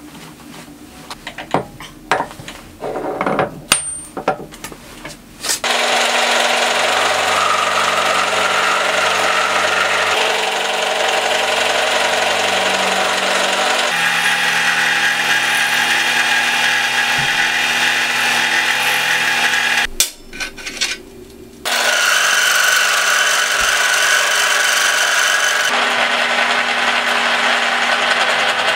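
Milling machine end mill cutting slots into a block of cold-rolled mild steel: a loud, steady cutting noise. It is preceded by a few seconds of scattered metal knocks as the block is set in the vise, and broken by a second short run of knocks about two-thirds of the way through.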